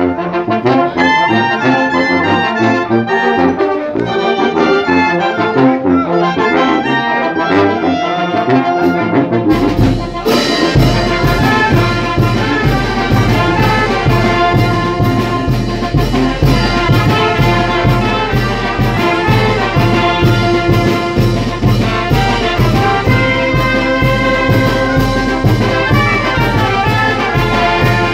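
Brass band playing, trumpets and trombones carrying the tune. About nine seconds in, drums and cymbals come in with a steady beat and the music grows fuller.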